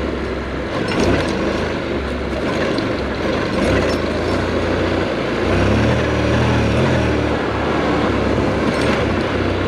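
Motorcycle ridden off-road over dirt: the engine runs steadily under wind and tyre noise, with a few small knocks from the rough ground, and the engine note grows stronger about halfway through.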